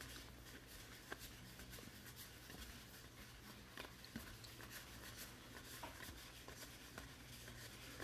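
Faint handling of baseball trading cards: light scattered ticks and rubbing as cards are slid and flipped through by hand, over a low steady hum.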